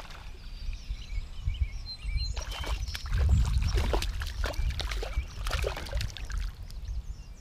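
A hooked crappie splashing and thrashing at the water's surface beside a kayak as it is drawn in to be landed. The splashing starts about two seconds in as a quick run of sharp splashes and lasts until near the end.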